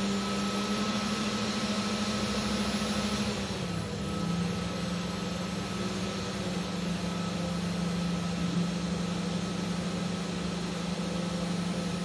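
Mini 5-axis CNC machine running. Its spindle and stepper motors make a steady hum while the rotary chuck turns the wooden blank. About four seconds in, the hum shifts slightly in pitch and the higher hiss drops away.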